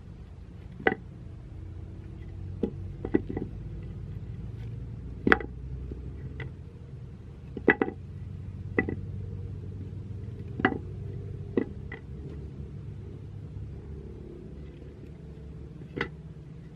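Sharp knocks and taps from a machete and a wooden plank being handled and set down on a wooden stump block. There are about a dozen, spaced irregularly, each with a short ring, over a steady low rumble.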